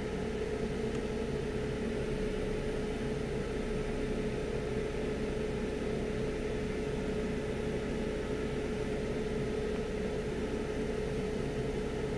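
Steady hum of bench equipment: an even hiss with a constant mid-pitched tone and a low drone, unchanging throughout.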